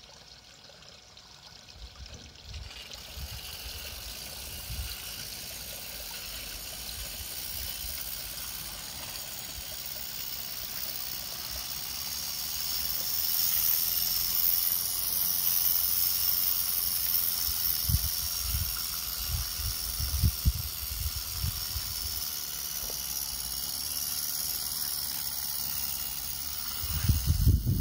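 Regner Nr. 102 live steam garden-railway tram running, with a steady hiss of escaping steam that builds in the first few seconds and is loudest around the middle. A few low thumps come a little past halfway.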